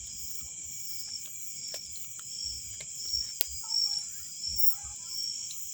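Crickets and other night insects chirring steadily in a high, pulsing chorus, with scattered sharp clicks, one louder about three and a half seconds in.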